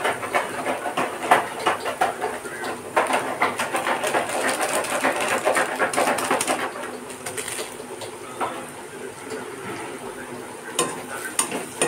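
Light metal clinks and taps against a steel kadai as masala spice mix is tapped out of its packet into the pan. The taps are dense for the first several seconds, then sparser and quieter, with a few more near the end.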